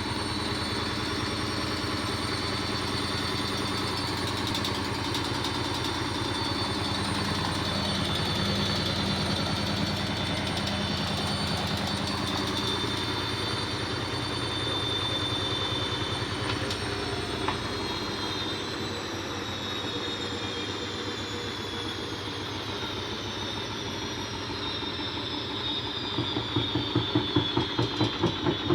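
Front-loading washing machine spinning and making an odd noise, which the owner puts down to the shock absorbers or a loose drum paddle. Its steady motor whine starts falling in pitch about halfway through as the drum slows, and near the end a fast, pulsing rhythm sets in.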